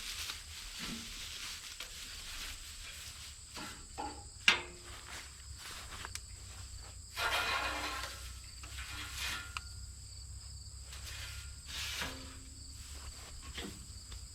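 Quiet outdoor ambience with a steady low rumble and scattered rustles and knocks, including one sharp click about four and a half seconds in and a longer rustle around the middle.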